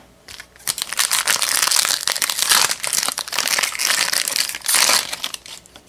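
Wrapper of a 2001 Fleer Platinum baseball card pack crinkling and crackling as it is torn open by hand, a dense run of small crackles that swells twice.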